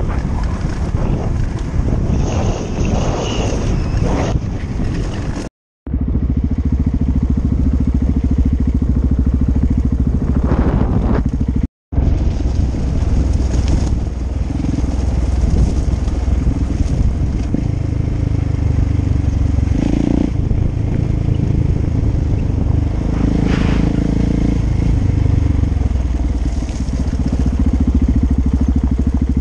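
KTM 690 Enduro R's single-cylinder engine running as the motorcycle rides along a gravel road, with tyres crunching over the gravel. The sound drops out twice, for a moment each time.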